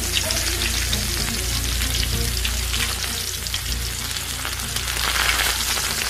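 Smartphone coated in besan batter deep-frying in hot oil in a steel kadhai: a steady sizzle with fine crackling as the oil bubbles around it.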